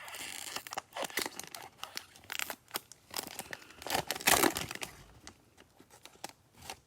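Plastic foil wrapper of a trading-card pack being torn open and crinkled, in irregular crackles that are loudest about four seconds in and then quieter.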